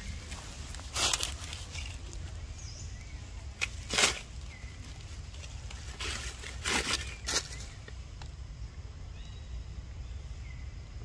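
Dry fallen leaves rustling and crackling as a baby monkey crawls and scrambles through leaf litter, in three short bouts, the loudest about four seconds in.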